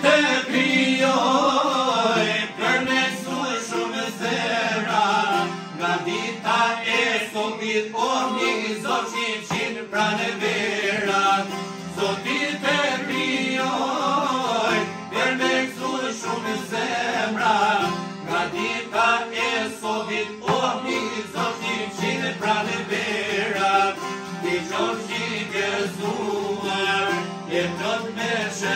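Several long-necked lutes plucked together in a quick, steady folk rhythm, with a man's voice singing a wavering, ornamented melody over them.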